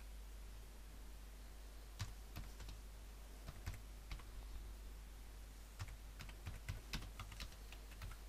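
Typing on a computer keyboard: irregular key clicks that start about two seconds in, over a steady low hum.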